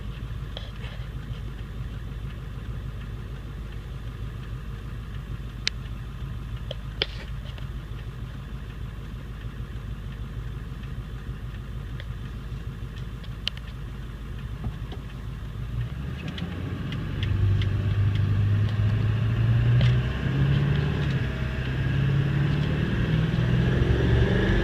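Ford 7.3 L Power Stroke V8 turbodiesel running steadily, then from about sixteen seconds in pulling hard under heavy throttle, louder and rising in pitch, the point at which its turbo flutters. A few sharp clicks sound in the steady part.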